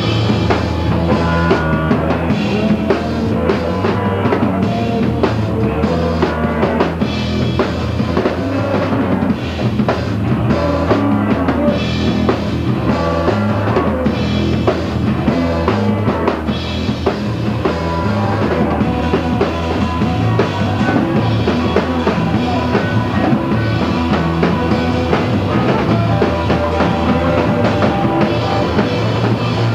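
Live rock band playing at full volume, with a pounding drum kit of bass drum and snare under guitars.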